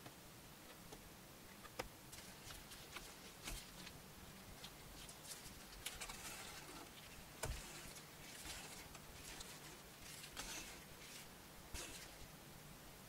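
Faint hand saddle-stitching of a leather wallet's edge: thread drawn through the stitching holes in short hissing pulls, with a few light clicks.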